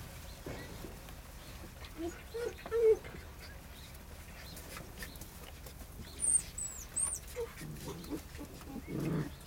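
Wolfdog puppies playing, with short whines and yips and scuffling knocks; three very high, short, falling squeaks come between about six and seven seconds in.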